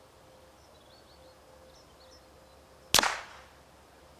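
A single suppressed rimfire rifle shot about three seconds in: one sharp crack that dies away within half a second. Faint bird chirps are heard earlier.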